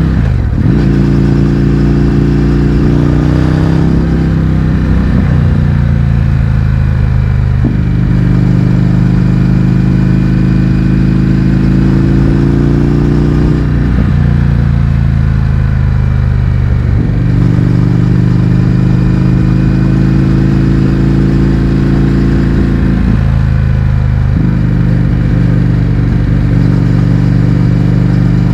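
Indian FTR 1200's V-twin engine running through an Akrapovič exhaust with the baffles removed, heard while riding. The engine note climbs slowly, then dips and picks up again several times.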